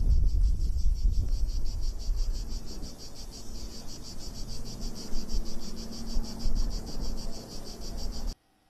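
Cicadas singing in a loud, fast pulsing buzz, with wind rumbling on the microphone underneath, strongest in the first few seconds. The sound cuts off suddenly near the end.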